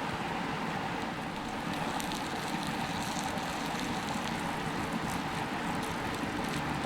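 Mountain creek flowing, a steady rushing of water.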